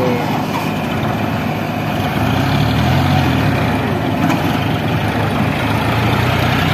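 Heavy diesel engine running steadily, getting louder and shifting in pitch from about two seconds in as it is worked.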